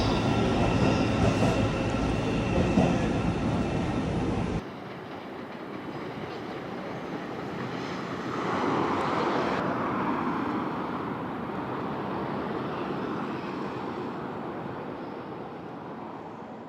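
Train running past a station platform: loud for the first few seconds with a few steady high tones over it. Then an abrupt cut to quieter train noise that swells briefly and fades toward the end.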